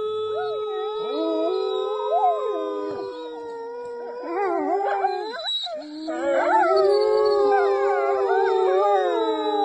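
A pack of grey wolves howling in chorus, joined by a woman howling through cupped hands. Long overlapping howls glide up and down in pitch. There is a brief lull a little past halfway, then the chorus swells louder.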